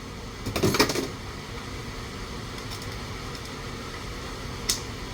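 A spoon knocks and scrapes against a bowl for about half a second as sour cream is spooned in. A steady room hum follows, with a single sharp click near the end.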